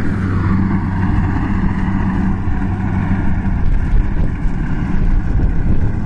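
Kubota DC70 rice combine harvester's diesel engine running at a steady pitch while harvesting.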